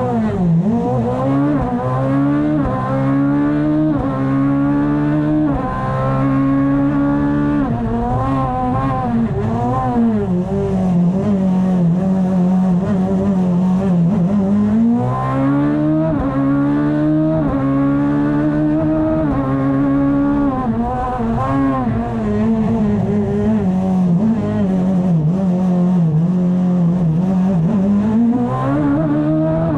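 Fiat 126 prototype race car's engine heard from inside the cockpit, revving hard and pulling through the gears. The revs rise and drop repeatedly in the first several seconds, settle lower for a while, then climb again about halfway and near the end.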